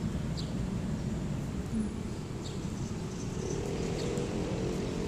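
Outdoor background noise: a low, uneven rumble, joined about three seconds in by a faint steady hum, with a few faint high chirps.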